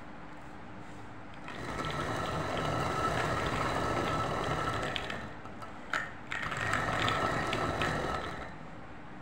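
Hand-turned stone quern (chakki) grinding pulses into split dal: the upper millstone rasps against the lower one in two spells, the first of about four seconds and the second of about two, with a sharp click between them.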